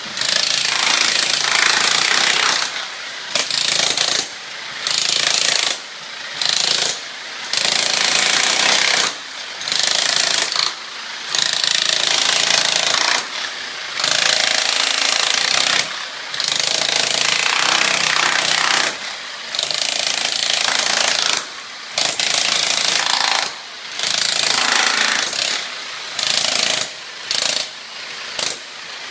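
Electric demolition hammer with a chisel bit hammering, stopping and starting in runs of about one to two seconds with short breaks. It is chiselling glued-down engineered hardwood off a concrete slab.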